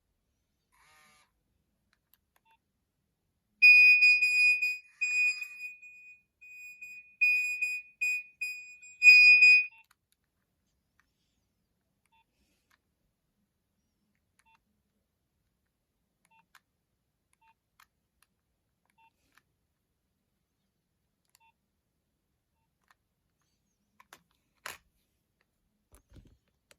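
Nokia 2600 mobile phone playing a tone through its loudspeaker: a rhythmic pattern of high beeps, all at one pitch, for about six seconds starting a few seconds in. A faint click comes near the end.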